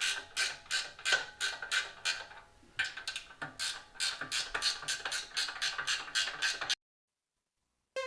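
Socket ratchet clicking in quick repeated strokes, about three a second, as it works the exhaust header flange nuts; it cuts off abruptly near the end.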